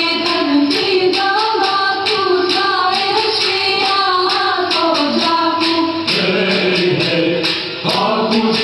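Albanian highland folk dance song: a group singing over a steady beat of sharp hand-percussion strokes. About six seconds in, lower voices take up the melody.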